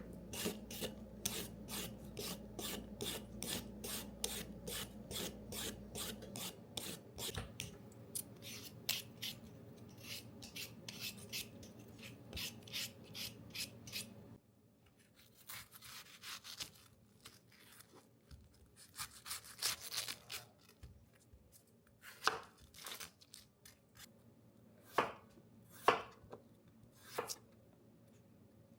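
Knife chopping on a cutting board in a fast, even rhythm of about three to four cuts a second, over a steady low hum. About halfway through the chopping stops and gives way to scattered single knocks, a few with a short ring.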